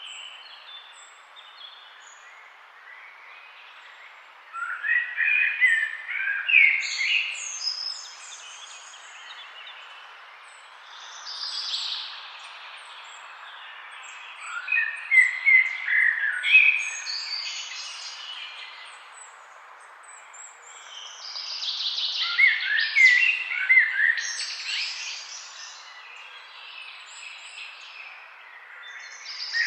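Songbirds singing: bursts of fast chirping and warbling phrases every few seconds over a steady faint hiss.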